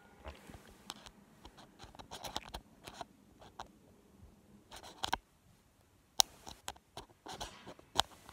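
Close handling noise on a phone: scratching and rustling against the microphone with scattered small clicks and two sharp clicks, about six and eight seconds in.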